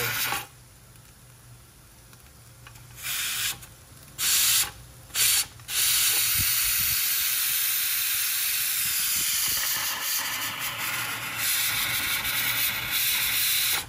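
Steam hissing out of a stovetop pressure cooker as its weighted valve is lifted with a spoon to let the pressure out. It comes first as three short bursts, then as a steady hiss from about six seconds in, which stops suddenly at the very end.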